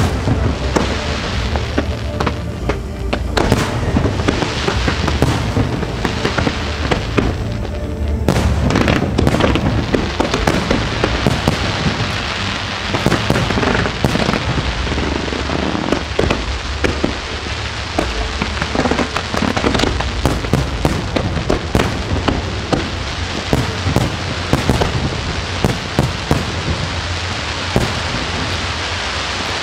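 Aerial fireworks going off in a dense barrage, with rapid overlapping crackles and shell bursts over a continuous rumble. It thickens about a quarter of the way in, as in the climax of a display.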